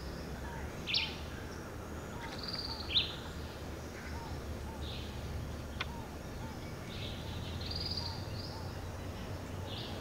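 Tropical forest ambience: several short bird calls, the loudest about one and three seconds in, over a soft chirp repeating about twice a second and a steady low rumble.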